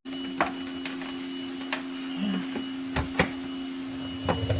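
A steady hum with a handful of light clicks and knocks, two close together about three seconds in, as a charging cable is handled and tucked in behind a motorcycle's plastic side panel.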